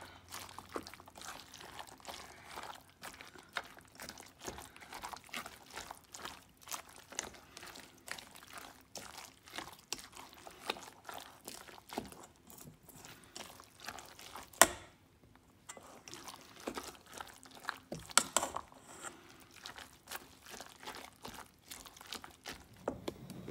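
Raw egg and chopped boiled eggplant, tomato and onion being mixed in a stainless steel bowl: a continuous run of short, irregular wet squishing and sloshing sounds, with one sharp knock a little past halfway.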